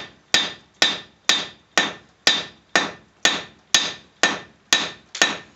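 Hammer blows on a red-hot 1084 steel knife blank, setting down the edge with a round die: steady strikes about two a second, each followed by a short metallic ring.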